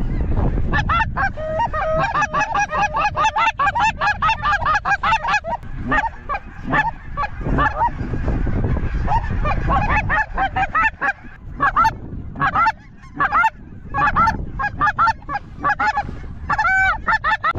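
A large flock of geese honking overhead: a dense, overlapping chorus of honks for the first five seconds or so, then scattered single calls, with one loud, clear honk near the end. Wind noise on the microphone runs underneath.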